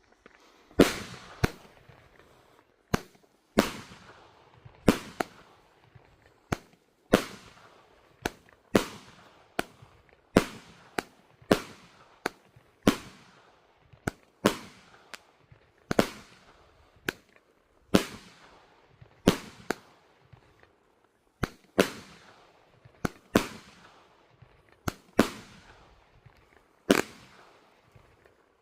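Celtic Fireworks 'OHH AHH' firework cake firing a long run of sharp bangs, roughly one every second with some closer together, each followed by a short fading tail.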